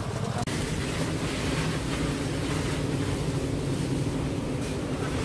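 Steady rumbling background noise, broken off briefly about half a second in.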